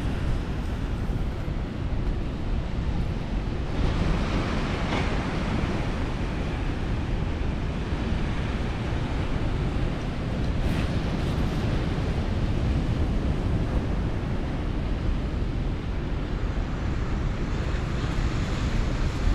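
Atlantic surf breaking on a sandy, rocky beach as a steady hiss, mixed with wind buffeting the microphone as a low rumble.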